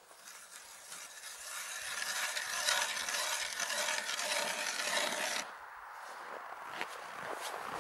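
Hand ice auger boring through lake ice: a continuous grinding scrape that builds over the first couple of seconds and cuts off abruptly about five and a half seconds in.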